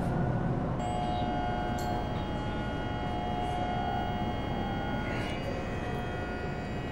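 Older TTC subway car heard from inside the car: a steady rumble of the running train, with a steady multi-tone whine joining about a second in, as it comes into a station platform.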